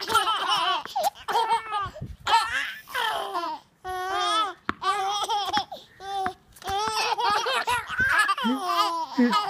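Ten-month-old twin baby girls laughing: repeated runs of high-pitched baby laughs with short breaks between.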